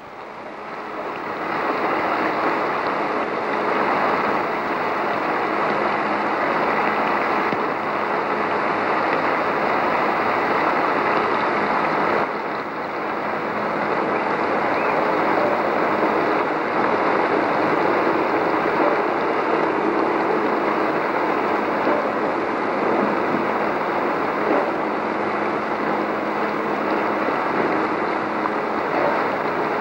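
Steady rushing noise, like surf or wind, with a faint low hum under it. It dips briefly about twelve seconds in.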